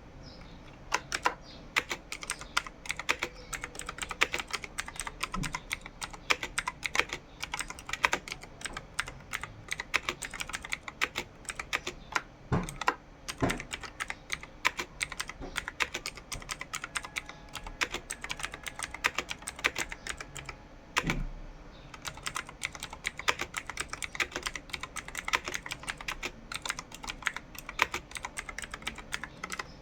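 Computer keyboard being typed on at a steady pace of about 40 words per minute: a dense, irregular run of key clicks with occasional heavier key strikes and a brief pause about two-thirds through.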